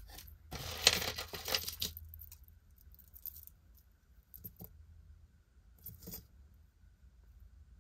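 Metal costume jewelry clinking and jingling as it is handled, a busy jingle for a second or so near the start, then a few small clicks.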